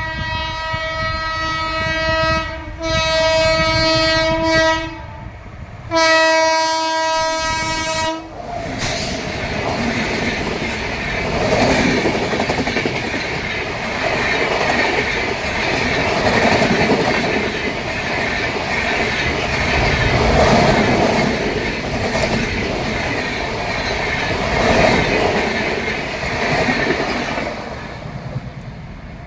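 WAP7 electric locomotive's horn sounding three long blasts, the first already going at the start. The train then passes with a loud rolling wheel clatter that lasts about twenty seconds and fades near the end.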